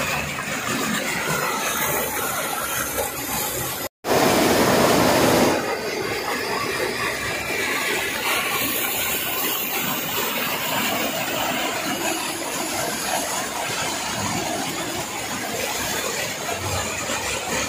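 Fast stream water rushing and foaming over rocks, a steady loud hiss of white water. About four seconds in it cuts out for an instant and comes back louder for a second or so.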